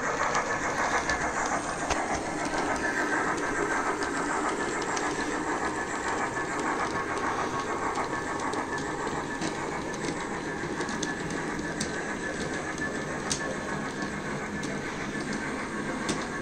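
OO gauge model train, a steam locomotive hauling coaches, running along the track: a steady rumble of wheels on rail and motor, with a few faint clicks.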